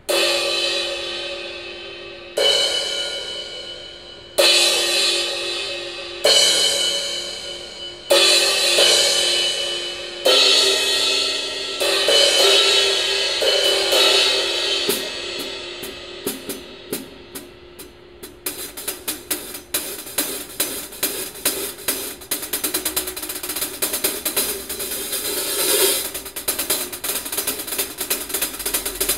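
Meinl Classics Custom Brilliant cymbals played on a drum kit: single crash cymbal strikes about every two seconds, each ringing out and fading before the next. About halfway through the strokes come quicker, turning into a fast, steady hi-hat pattern.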